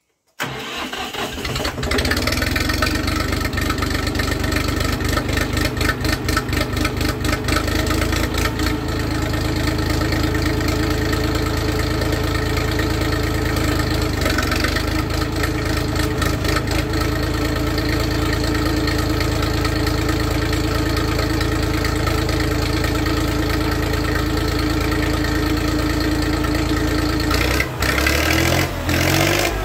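Compact tractor's diesel engine starting about half a second in and running. It clatters with a rapid pulse for the first several seconds, then settles into a steady idle. Near the end the engine speed changes as it is throttled up.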